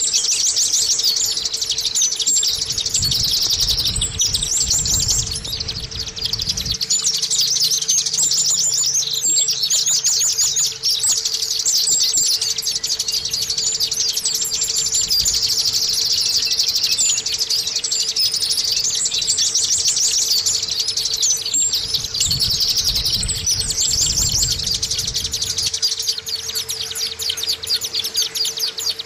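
White-eye (pleci) singing almost without pause: rapid, high twittering chirps and trills. It is the lively song used as a bait sound to prompt other white-eyes to start singing.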